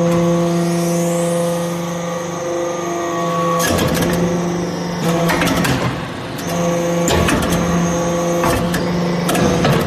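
Hydraulic metal-chip briquetting press running: a steady hum from its pump and motor, with clusters of metal clanks and knocks as the press cycles, starting about four seconds in and recurring several times.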